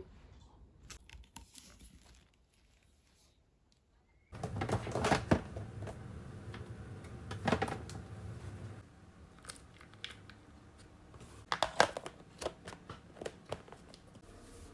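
Crinkling and rustling of handled material with sharp clicks and knocks, starting about four seconds in over a low steady hum, after a near-quiet start.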